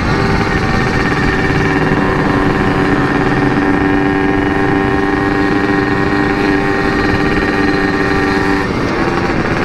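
Yamaha RX-King 135cc two-stroke motorcycle engine with an aftermarket CRC Series Repsol exhaust, riding at steady revs and holding one even note for most of the time; near the end the steady note gives way as the revs change.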